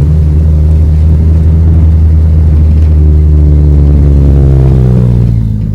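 Chevrolet Astra 2.0 four-cylinder with a straight-pipe exhaust and no muffler, accelerating hard at full throttle in second gear, heard from inside the car. The loud exhaust drone climbs steadily in pitch, then drops away sharply about five seconds in as the throttle is released.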